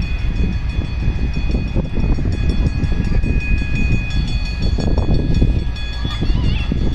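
Pakistan Railways HGMU-30 diesel-electric locomotive and its passenger coaches rolling past close by: a loud, continuous low rumble of engine and wheels that starts abruptly, with a steady high-pitched whine over it.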